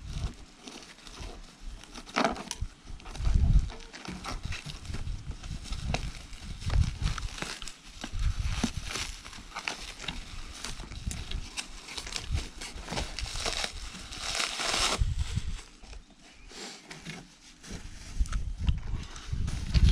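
Packaging being pulled open and unwrapped by hand: irregular crinkling, tearing and rustling, with scattered clicks and low knocks from handling, heaviest around two seconds in and again in the middle and around fourteen seconds.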